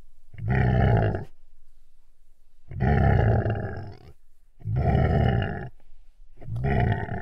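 A large animal calling: four long, loud calls of about a second each, spaced about two seconds apart.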